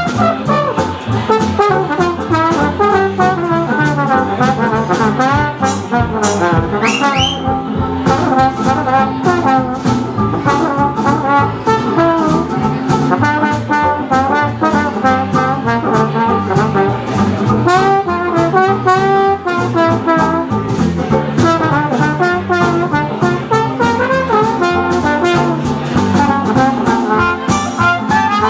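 Swing jazz band playing live, a trombone carrying the lead line over upright bass and a steady swing beat.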